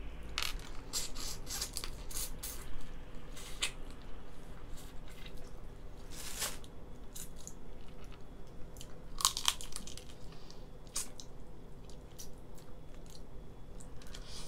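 Boiled lobster shell being cracked apart by hand and crunched and sucked on while eating: irregular small crackles and snaps, with louder cracks about six and nine seconds in.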